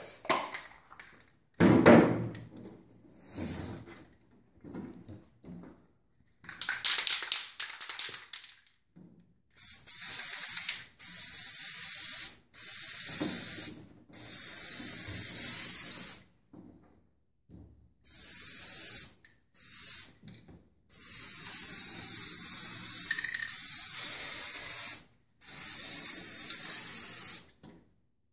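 Aerosol spray-paint can rattled, then sprayed in about eight separate hissing bursts, each lasting one to four seconds, as paint goes on around a cardboard template.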